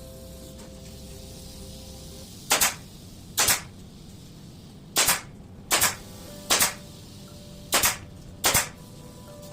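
Seven short, sharp cracks at irregular intervals of about a second, each one a quick double snap.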